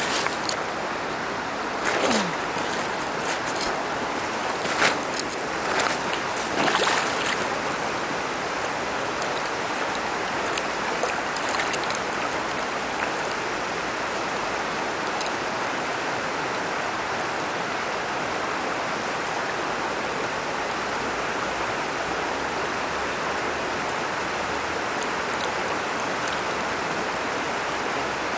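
Steady rushing of a shallow river flowing over a stony bed, with a few brief louder noises in the first seven seconds as someone wades into the water.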